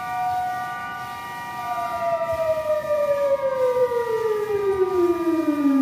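Sirens sounding the iftar signal that ends the Ramadan fast at sunset. Several steady wailing tones sound together, then from about two seconds in one siren winds down, its pitch falling steadily, while the others keep their tone.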